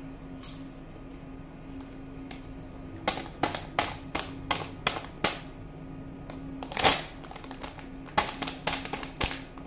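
Crunchy popcorn being chewed close to the microphone: a run of sharp, irregular crunches, about two to three a second, starting about three seconds in, pausing briefly and picking up again, over a faint steady hum.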